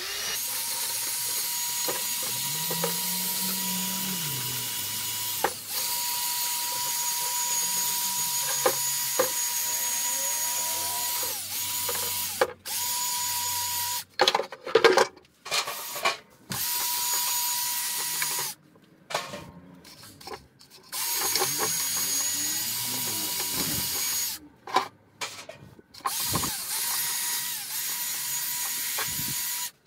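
Cordless drill spinning a wire brush against a steel bench vice, scrubbing it clean. It runs steadily for the first dozen seconds or so, then in shorter bursts with several stops and restarts.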